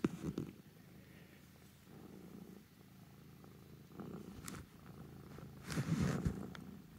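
Long-haired tabby cat purring on a lap while being scratched under the chin. A few clicks come near the start, and a louder burst of rustling comes about six seconds in as the cat's face brushes up against the phone.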